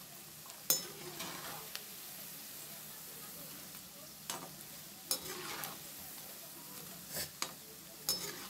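Methi (fenugreek) pakoras deep-frying in hot oil in a metal kadhai with a steady sizzle. A perforated slotted spoon turns them, scraping and clinking against the pan about six times.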